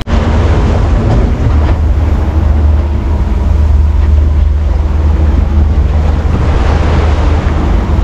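Aluminium fishing boat underway on the open ocean: the outboard motor running steadily under water rushing along the hull, with heavy wind buffeting the microphone as a steady low rumble.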